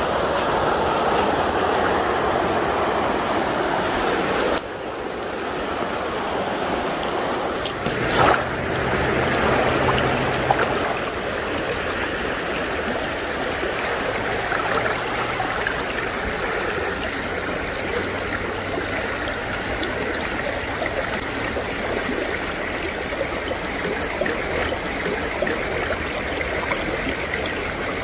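Small mountain creek running over rocks: steady rushing, trickling water, with a brief splash about eight seconds in.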